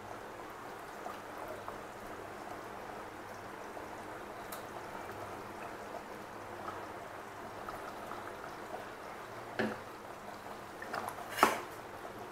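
Chicken curry gravy simmering in a pot, a faint steady bubbling. Near the end a steel ladle knocks twice against the pot.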